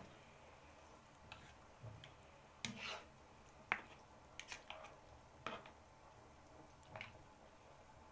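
A spatula stirring seafood in a tomato sauce in a nonstick frying pan: faint, scattered short scrapes and taps against the pan, roughly one a second.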